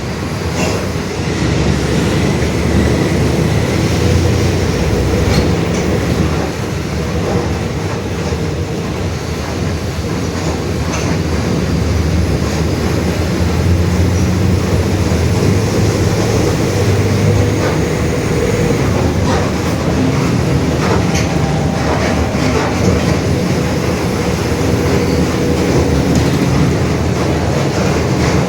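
Mercedes-Benz OF-1721 Bluetec 5 city bus with Marcopolo Torino S bodywork, heard from inside while under way: steady diesel and drivetrain running with a growling differential, over a constant clatter of body rattles and clicks.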